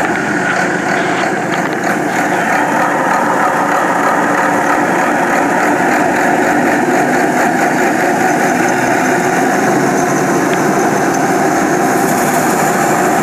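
The drain cleaner's 280 HP Cummins diesel engine running steadily while it drives the triplex high-pressure water pump, with the hiss of the water jet over it.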